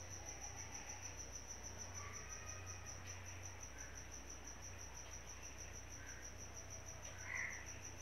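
A cricket chirping in a fast, even pulse, with a steady low hum underneath; a brief louder sound comes near the end.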